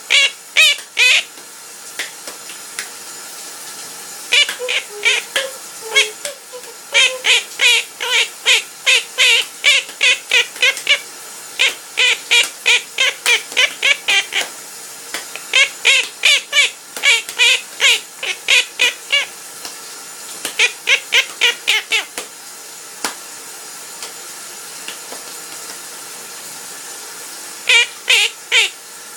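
Pet parrot singing: runs of quick, repeated high chirping notes, several a second, in bursts of a few seconds separated by short pauses, with a longer lull near the end.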